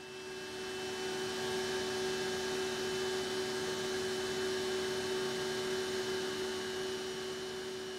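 BOGE HST high-speed turbo compressor running at steady speed: a smooth, even hum of a few steady tones over a soft hiss, fading slightly near the end.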